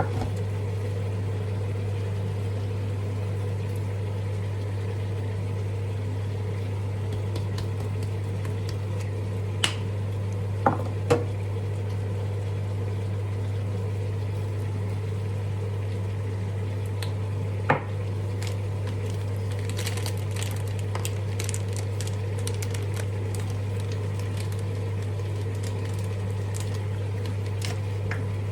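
Steady low hum of a running kitchen appliance, with a few sharp clinks of dishes or utensils about a third of the way in and again near two-thirds, followed by a short patter of small ticks.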